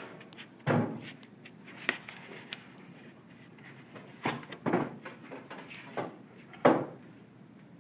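Foam transport pads being pushed and fitted into the transport slot of a Tecan Spark 10M plate reader: about half a dozen short knocks and clunks against the instrument's housing, the loudest near the end.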